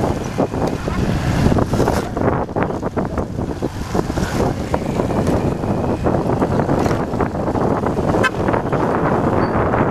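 Wind buffeting the microphone of a moving vehicle, with the vehicle's engine running underneath; the rumble stays loud and unbroken.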